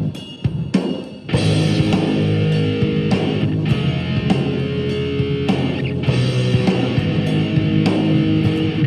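Wylde Audio electric guitar played through a Yamaha THR amp, a rock part with held notes over band backing. The music thins out briefly near the start, then comes back in full.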